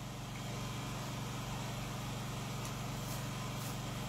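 Steady low hum in the recording, even and unchanging, with a few faint mouth clicks from chewing in the second half.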